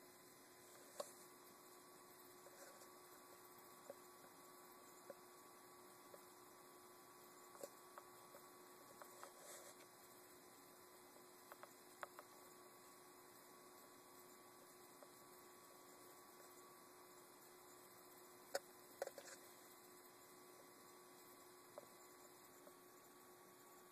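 Near silence: a faint steady hum with a few short, soft clicks scattered through it.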